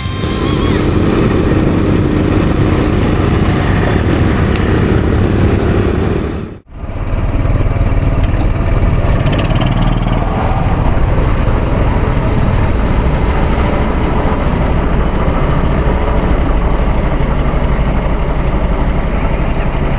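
Quad bike (ATV) engine running under way, heard loud and rumbling through a camera strapped to the rider's chest. The sound drops out for a moment about six and a half seconds in, then carries on the same way.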